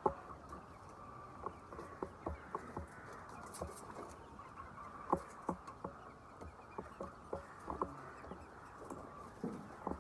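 Chickens making a scatter of short, irregular taps and brief soft calls, several a second, over a low steady background.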